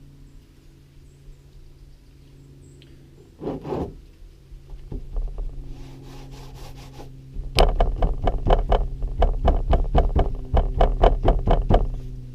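Trigger spray bottle being squeezed rapidly, about four sprays a second for several seconds, misting copper sulfate solution onto steel. A low steady hum runs underneath.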